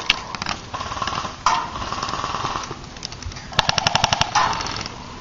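Airsoft rifle fire: a couple of single pops, then a rapid full-auto burst of about ten shots lasting under a second, about three and a half seconds in.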